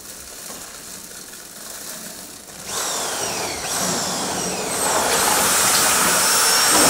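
A power tool starting up after about two and a half seconds, with a few falling whines, then running steadily and louder with a high whine from about halfway through.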